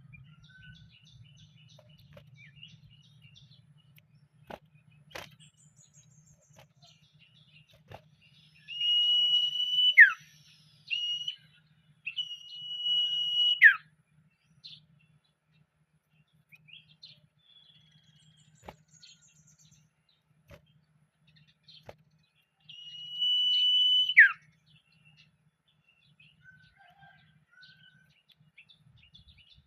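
A common iora (cipow) singing: soft scattered chirps and three loud long whistles, each held at one pitch and then dropping sharply at the end, its imitation of the 'telolet' bus-horn call.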